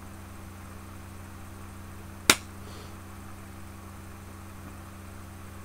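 Steady electrical mains hum, with a single sharp click a little over two seconds in.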